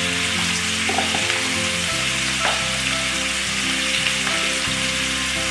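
Pre-boiled pork pieces with onion and potato sizzling in oil in a kadai over a gas flame: a steady frying hiss with a few faint pops.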